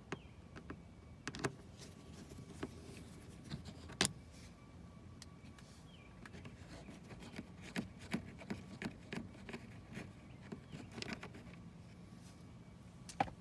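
Scattered small clicks, taps and light scrapes of a screwdriver and hands working two screws out of a car door's window-switch panel. The sharpest click comes about four seconds in, with a busier run of taps later on.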